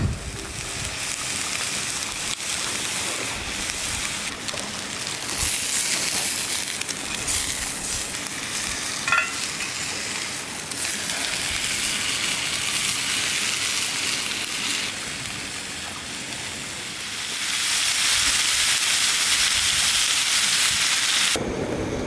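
Sirloin steak sizzling in a cast-iron pan over a wood fire: a steady frying hiss that grows louder in the last few seconds.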